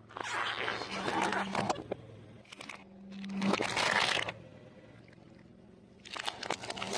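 Close-up crunching of fried food being bitten and chewed, in several crackly bursts with short pauses between them, over a faint steady low hum.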